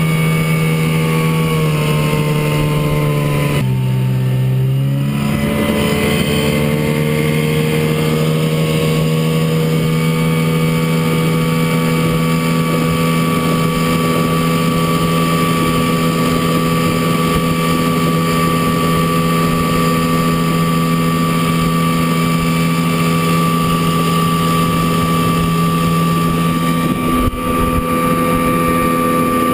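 1967 Chrysler 9.2 hp two-stroke outboard motor running under way at a steady speed. Its pitch drops briefly about four seconds in, then climbs back and holds steady.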